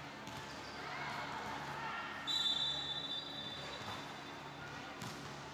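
Referee's whistle blown once: a single high, steady blast of about a second, a little over two seconds in, over background chatter of players and spectators.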